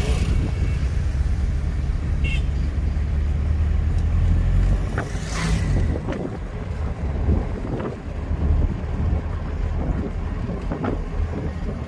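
Steady low rumble and road noise of a vehicle driving along a road, heard from on board, with a brief rushing swell about five and a half seconds in.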